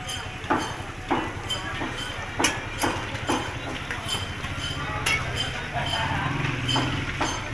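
A long metal spatula scraping and knocking against an iron karahi wok as meat is stirred, about two strokes a second at first and then more sparsely. A steady low engine hum runs underneath.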